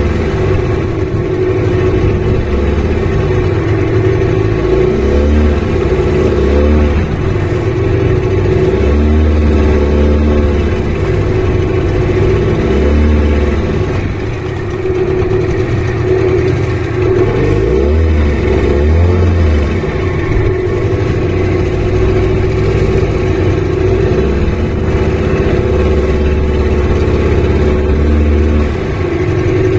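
Small fishing boat's engine running steadily under way, its pitch repeatedly rising and falling as the throttle is eased on and off.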